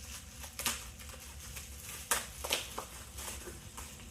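Small jars being handled: a few short clicks and taps, the loudest two about two seconds in, over a steady low hum.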